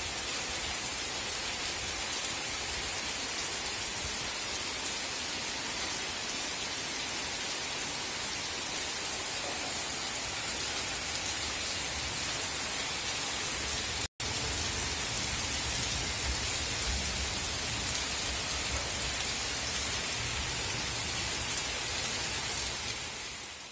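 Heavy rain falling steadily, an even hiss of drops on the surfaces around. It cuts out for an instant about fourteen seconds in and fades away at the end.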